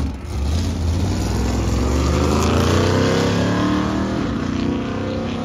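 Drag racing car engine accelerating hard, its pitch climbing steadily for several seconds, loudest around the middle and easing off near the end.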